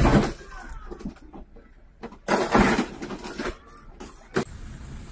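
A car sliding on snow crashes into parked cars: a loud crunch right at the start and a second, longer crunch about two and a half seconds in, then a single sharp knock near the end.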